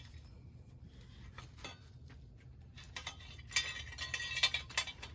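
Metal exhaust parts clinking and knocking as they are handled and fitted back together, a few light clicks at first and a quick cluster of clinks near the end.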